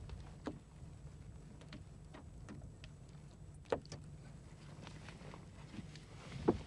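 Light knocks and taps from a carp being handled in a landing net on a boat, over a low steady rumble. One louder knock comes about halfway and another near the end.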